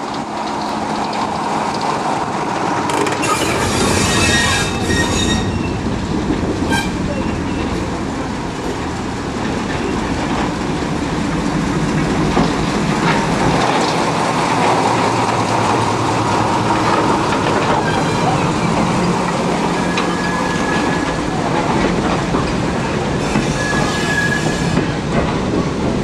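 Diesel shunting locomotive running close past, its engine sounding steadily as it hauls a rake of goods wagons. Wheels clack over rail joints, and high squealing from the wheels comes a few seconds in and again near the end.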